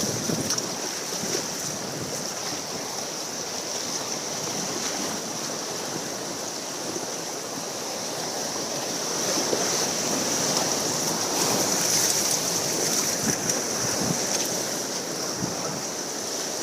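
Creek water rushing around a river raft: a steady hiss of moving whitewater that swells a little about ten seconds in.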